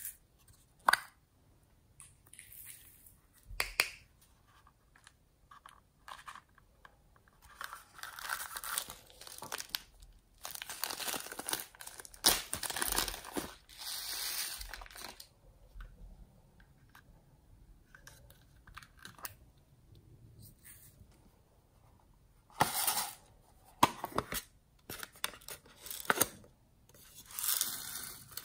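Small plastic cases clicking open and shut now and then, and a few seconds of beads and sprinkles rattling and rustling as they are poured out of a plastic cup onto slime in a plastic tray, about ten seconds in.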